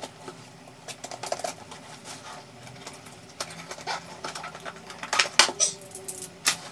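Rustling and crinkling of a parcel's packaging being opened by hand, with scattered small clicks and taps, busier and louder in the last couple of seconds.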